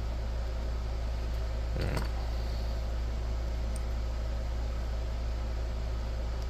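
Steady low mechanical hum with an even background hiss, and one short click about two seconds in.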